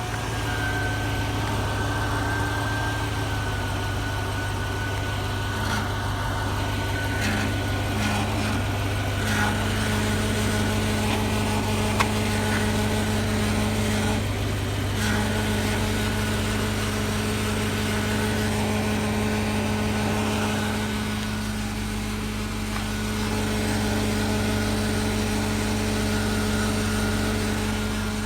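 2000 Chevy Tahoe running, with a steady hum and whine and a grinding rattle from underneath near the fuel filter, with a few sharper rattles along the way. The cause is undiagnosed: the fuel filter, transfer case or fuel pressure regulator are suspected.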